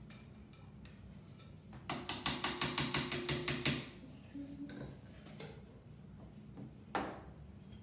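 Spatula scraping cake batter out of a mixing bowl into a baking pan: a quick run of rapid scraping strokes, about eight a second for a couple of seconds, then a single knock near the end.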